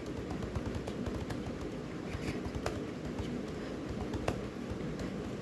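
Computer keyboard being typed on at an uneven pace, about three key clicks a second, over a steady low background hum.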